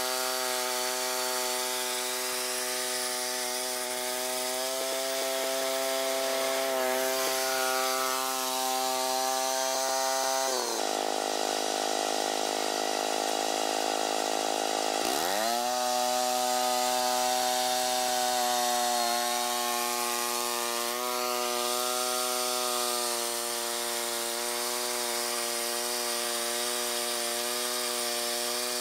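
Allis-Chalmers 410 garden tractor's engine running steadily under load while driving a rear-mounted rototiller through soil. Near the middle the engine speed dips for about four seconds, then climbs back up.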